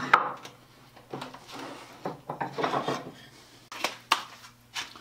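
A plastic shopping bag rustles and crinkles as it is spread on a wooden workbench. A few sharp clicks come near the end as the steel saw blade is set down on it.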